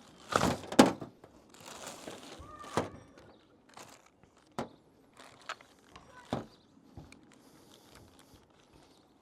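Scattered sharp clicks and knocks of hard plastic and metal being pried and handled while a truck's battery junction box is taken apart, the loudest pair about half a second in, with a stretch of rustling around two seconds.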